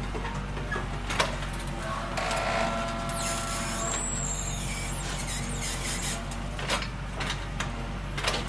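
Excavator's diesel engine running steadily under work, with a few sharp metallic knocks and a brief whine a couple of seconds in.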